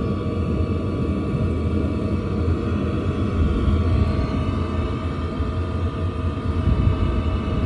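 Diesel heater running: a steady low rumble with a constant high whine above it.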